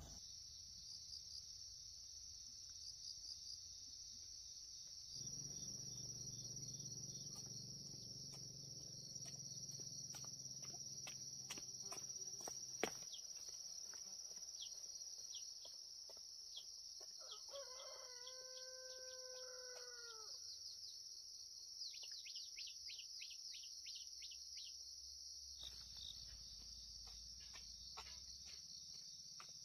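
A rooster crows once, a single drawn-out call of about three seconds that drops in pitch at its end, about halfway through. Under it runs a steady high drone of crickets, with one sharp click a few seconds before the crow.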